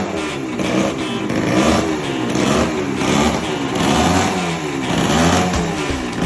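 Yamaha TT 125 motorcycle engine running and being revved over and over, its pitch rising and falling about five times. The engine has just been brought back to life after standing unused for 20 years.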